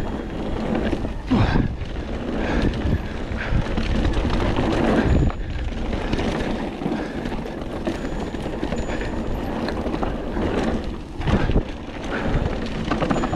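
Mountain bike rolling fast down a dirt trail: steady tyre and drivetrain rattle, with several sharp knocks as the bike hits bumps and jumps.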